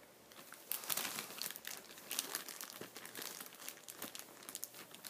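Clear plastic zip-top bag crinkling as a small hand rummages in it for puzzle pieces. The rustling starts a little under a second in and comes and goes unevenly.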